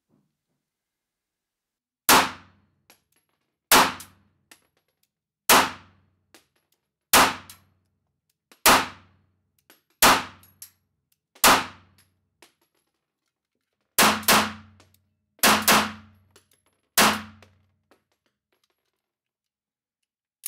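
Sig Sauer P238 .380 ACP pistol firing about a dozen shots, each a sharp crack with a short ring. The first seven come evenly, about a second and a half apart, followed by two quick pairs and a last single shot. Faint small clicks fall between the shots.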